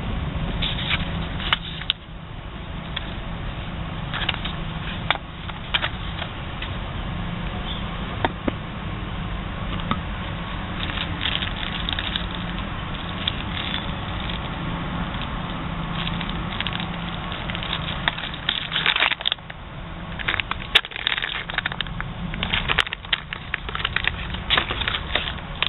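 Plastic packaging and bags crinkling and rustling as the parts of a water filter kit are handled, with scattered sharp clicks and crackles that grow busier near the end, over a low steady hum.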